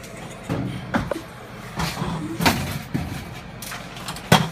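A series of irregular knocks and clunks, about six over four and a half seconds, with the sharpest one near the end, from hard objects being handled and bumped.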